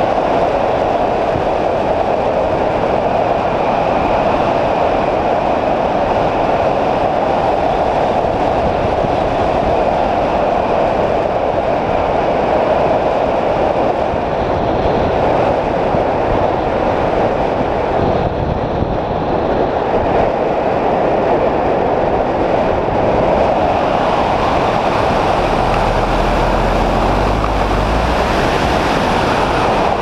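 Steady rush of wind over a hang glider in flight, heard as airflow noise on a wing-mounted camera's microphone, with a deeper buffeting rumble for a few seconds near the end.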